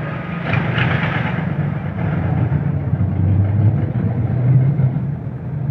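Jeepney's diesel engine running as it drives along, heard from inside the open passenger cabin with road noise.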